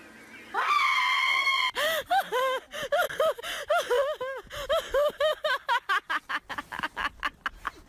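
A person's high-pitched voice: one cry held for about a second, then a long run of short yelps, each rising and falling in pitch, about three a second and coming faster near the end.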